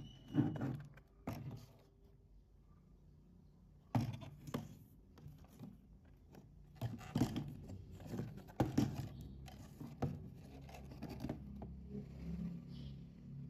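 Hands handling a Sony TFM-110 portable transistor radio, its case knocking and scraping against a wooden table in irregular bumps and rubs.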